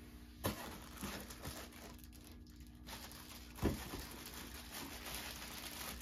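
A plastic packaging bag crinkling and rustling as fan parts are handled in their carton, with a few sharp knocks, the loudest about three and a half seconds in.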